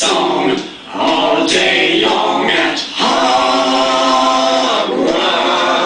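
Unaccompanied voices singing in short phrases, with one long held note near the middle.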